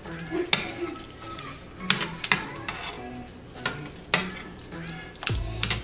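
A metal utensil stirring soup in a stainless steel stockpot, with a few sharp clinks against the pot and a heavier knock near the end. Soft background music plays underneath.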